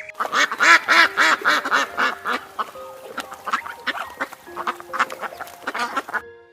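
Ducks quacking in a fast run of calls, several a second, stopping about six seconds in.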